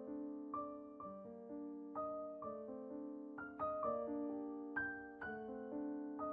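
Piano music: a slow run of single notes and chords, each struck and left to ring and fade.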